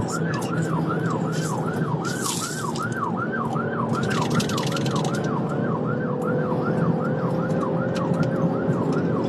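Police car siren in a rapid yelp, about three sweeps a second, over steady engine and road noise.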